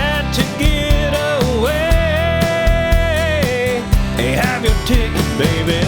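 Country song with a full band playing a steady beat; a melody line holds one long note through the middle.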